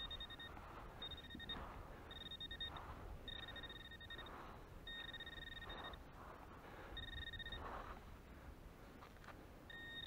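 Metal detector giving a target signal: a steady high electronic tone sounding about seven times, each lasting half a second to a second, as the coil is swept back and forth over the spot. The detector reads the buried target at about 10 cm deep.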